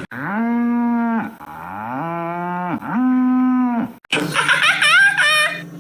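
Cattle mooing: three long, steady moos in a row, each rising at the start and then held. About four seconds in, the sound cuts abruptly to different animal calls with quick falling squeals.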